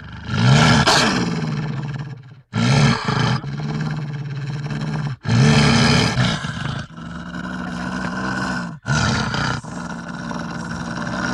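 A wolf growling in a series of about four long, deep, rasping growls with short breaks between them. Each growl starts loudest, then holds steady.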